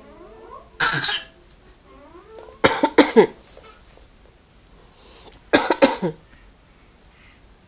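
Imitation coughing in three bouts: a single cough about a second in, then a quick run of coughs around three seconds in and another around six seconds in.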